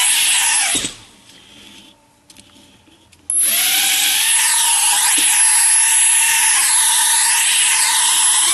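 The four small motors and propellers of a stripped-down Air Hogs Millennium Falcon quadcopter whine at speed, then wind down to a stop just under a second in. About three seconds in they spin back up sharply and run steadily, with a wavering beat between the rotors.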